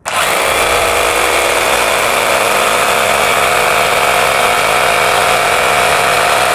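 Rotary hammer drill with a 10 mm bit boring a hole into a wall, starting suddenly and running steadily at full speed.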